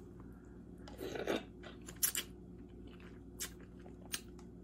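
Hard crab claw shell being cracked and picked apart by hand: a crunch about a second in, then a few scattered sharp clicks and snaps of shell.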